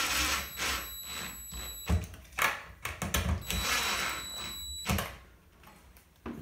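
Cordless drill driving screws into a doorknob's plate: two runs of the whining motor, the second about a second long, with a few sharp knocks between and after.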